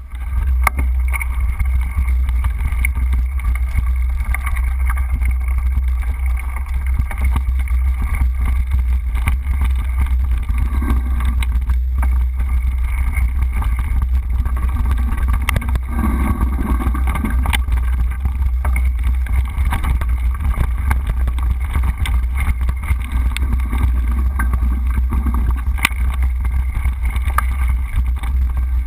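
Wind buffeting the microphone of a camera riding along on a mountain bike on a dirt trail: a loud, steady low rumble, with a few sharp clicks and rattles as the bike goes over bumps.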